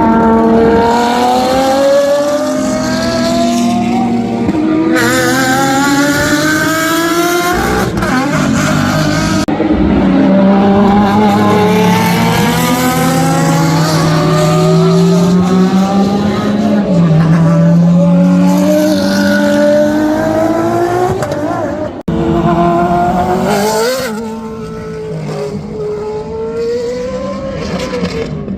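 Racing car engines at high revs, their pitch climbing through upshifts and falling away, in several clips joined with a few abrupt cuts.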